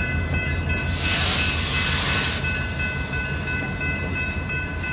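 Freight boxcars of a passing train rolling through a grade crossing: a steady low rumble of wheels on the rails, with steady high-pitched ringing tones over it. A brief hissing rush comes about a second in.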